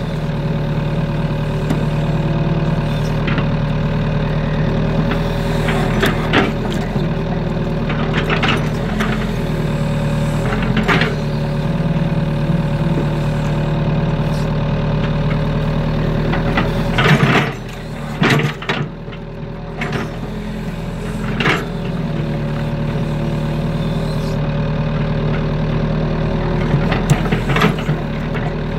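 SK03 excavator's diesel engine running steadily under working load, heard from the operator's cab, with sharp clanks from the bucket and boom joints as it digs and dumps mud. The loudest clank comes about 17 seconds in, and the engine note drops for a few seconds after it.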